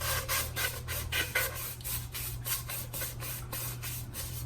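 A large sheet of cardstock rustling and rubbing in a quick run of short strokes as it is rolled by hand to curl a paper flower petal.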